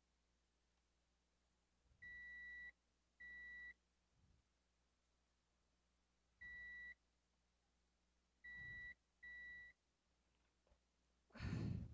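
Multimeter continuity buzzer giving five short steady high beeps, each about half a second, as the probes touch connected points while circuit-board traces are traced for continuity. A short muffled thud near the end.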